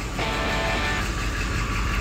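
Quiet background music with held notes, over a steady low rumble.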